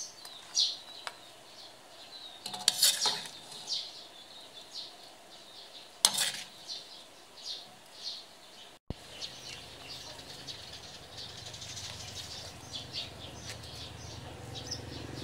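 A metal spoon scraping and clinking against an aluminium wok and a ceramic bowl while serving stir-fried red ant eggs, with a few sharp clinks in the first half. Small bird chirps sound throughout. After a cut about nine seconds in there is a steady low hum.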